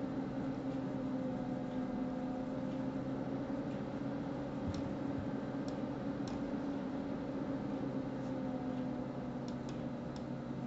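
Steady low hum and hiss of background noise, with a handful of faint mouse clicks around the middle and a small cluster near the end.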